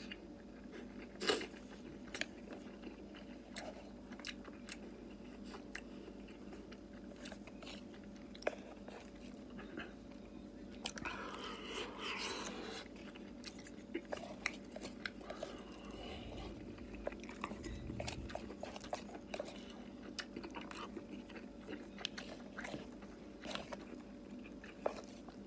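Close-up eating sounds: a man chewing and biting into a hamburg steak with rice, with wet mouth noises and many short clicks. There is a louder stretch of biting and chewing about twelve seconds in, as he bites into the whole patty.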